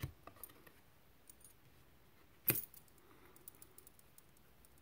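Tarot cards being handled and laid out: a soft click at the start, one sharp snap about halfway through, and faint ticks in between.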